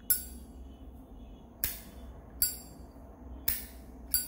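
Zippo lighter handled: five sharp metallic clicks at irregular intervals, the first and last with a brief ringing ping, as the lid is flipped open and snapped shut.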